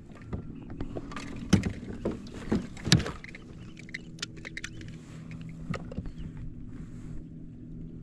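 A boat's motor running steadily with a low hum, under a run of knocks and clatters that are loudest about one and a half to three seconds in.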